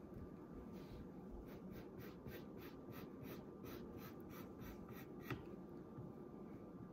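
A pencil sketching on paper: a faint run of quick, light scratching strokes, about four a second, which stops a little over five seconds in.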